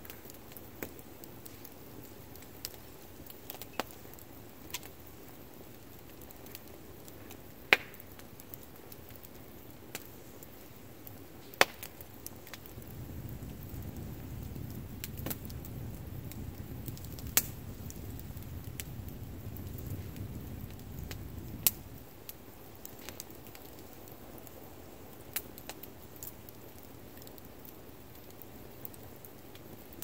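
Wood campfire crackling, with irregular sharp pops from the burning logs, a few of them much louder than the rest. A low rumble swells in about twelve seconds in and fades out about ten seconds later.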